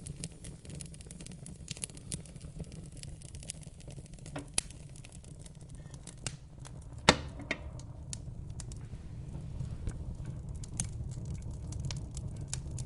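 Wood fire in a fireplace crackling, with scattered small pops and one louder snap about seven seconds in, over a low steady rumble.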